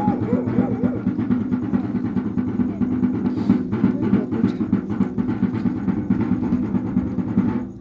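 Wayuu kasha drum beaten in a fast, continuous roll for the yonna dance, breaking off just before the end.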